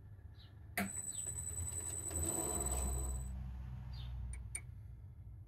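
Quiet workshop: a sharp click about a second in, then a steady high whine over a low hum for a couple of seconds, and a few faint short chirps now and then.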